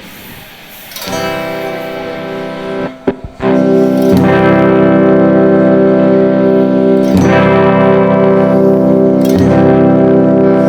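Difergio MSV guitar being strummed in a sound check: a soft chord about a second in, a few clicks around three seconds, then loud chords struck about four, seven and nine seconds in, each left to ring.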